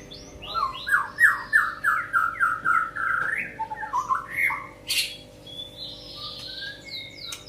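Songbird singing: a quick run of about ten rising chirping notes, then scattered varied whistles and calls.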